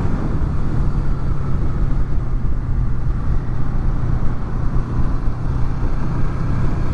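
Honda VFR800's V4 engine running at a steady cruise, with a constant rush of wind over the microphones under their furry windshields.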